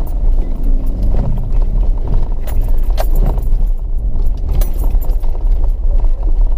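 Off-road vehicle driving slowly over a rutted sand and gravel track, heard from inside the cab: a steady low rumble of engine and tyres, with loose rattling and a few sharp knocks as it bounces over the ruts.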